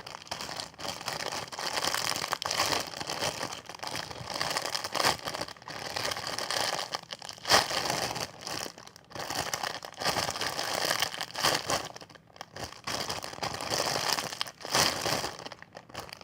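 Plastic packaging crinkling in irregular bursts as a squishy toy still sealed in its bag is squeezed and handled.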